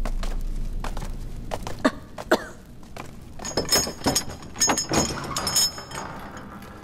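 Scattered footsteps and knocks, then metal clattering and jingling for a couple of seconds from about three and a half seconds in, as a guard opens a prison cell's wooden-barred gate. A low drone fades out in the first two seconds.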